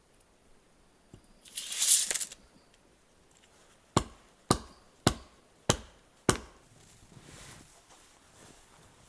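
Axe chopping wood: five sharp blows about half a second apart, after a brief scraping rustle.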